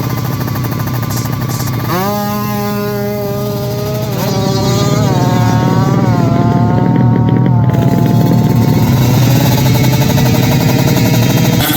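Drag-racing motorcycle engine at full throttle, its revs shooting up about two seconds in and then climbing again in steps through the gear changes.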